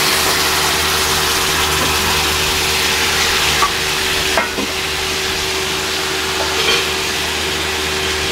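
Spaghetti frying hard in a steel frying pan on high heat: a loud, steady sizzle, broken by a few light knocks at the pan. A steady low hum runs underneath.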